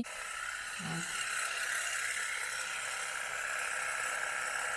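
Steady whirring hiss inside a moving car: road and ventilation noise, with a faint short sound about a second in.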